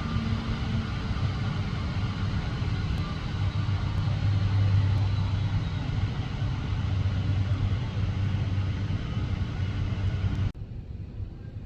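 Steady low rumble of a vehicle in motion, running evenly until it cuts off sharply near the end.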